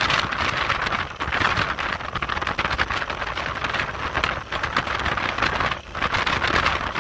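Wind rushing over the microphone of a camera on a moving vehicle: a steady, loud, hissing rush with a brief lull a little before six seconds in.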